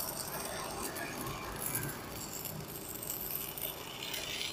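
Stick-welding arc from a 2.5 mm electrode at 150 A on a JACPRO ARC200PRO inverter welder, burning on steady with a continuous crackle and sizzle and small irregular pops.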